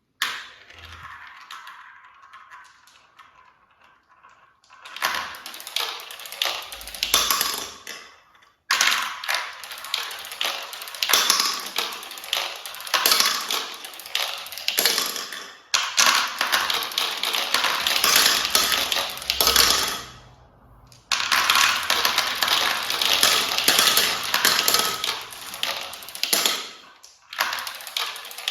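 Many marbles rolling and clattering along a marble-run track, a dense stream of rapid clicks and clacks that breaks off briefly a few times.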